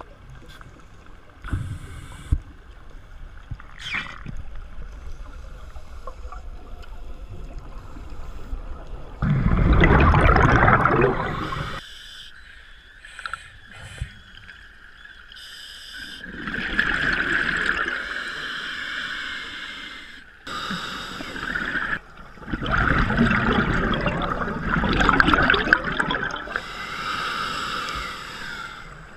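Scuba diver's exhaled bubbles gurgling and rushing past the camera underwater, in loud bursts a few seconds long roughly every six seconds, with quieter pauses between breaths.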